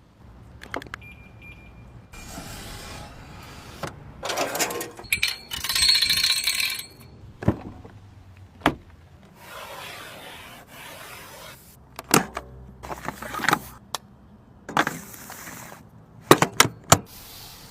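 Rolls-Royce car mechanisms at work: a string of sharp clicks and knocks, a quick cluster of them near the end, between stretches of whirring, one of which carries a steady high tone.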